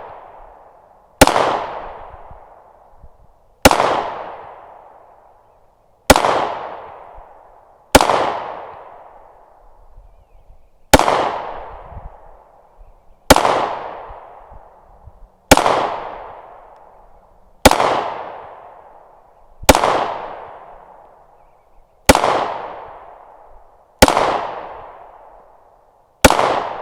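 A Glock 43X 9mm pistol fired in slow, aimed single shots, twelve reports about two seconds apart, each followed by a long fading echo.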